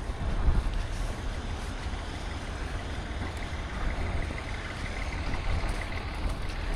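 Steady low rumble of street traffic, like a large truck running, with a faint high whine through the middle.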